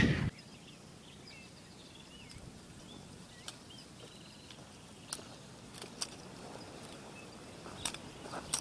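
Quiet outdoor background with a few faint chirps, then the sharp clicks of trekking-pole tips and boots striking a rocky trail, one every second or so, getting louder as the walker comes closer.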